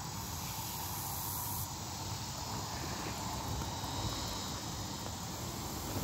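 Steady outdoor background noise: an even hiss over a low, uneven rumble, with no distinct events.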